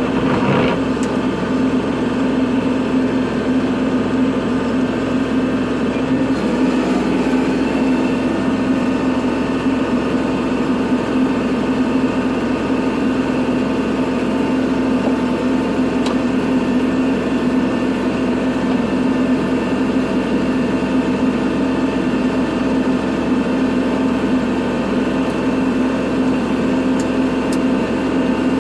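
Kubota tractor's diesel engine running at a steady speed while plowing snow, its pitch holding constant.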